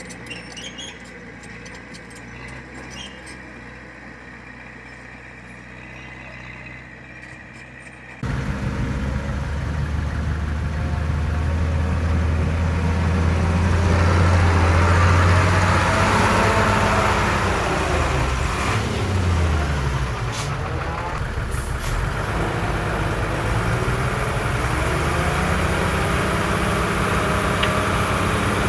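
Light scattered clicks and squeaks at first, then from about eight seconds in the heavy diesel engine of earthmoving machinery runs loudly, its pitch rising and falling under load. Two short hisses come a second apart, past the middle.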